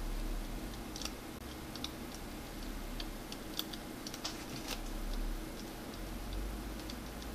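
Light, scattered clicks and taps of fingers handling a tablet's opened internals, pressing down flex cables and their connectors, over a low steady hum.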